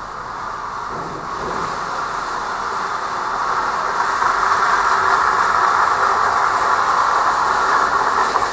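Metal roll cages rattling and rumbling as they are wheeled across the supermarket's concrete delivery yard. The noise grows steadily louder over the first few seconds, then holds.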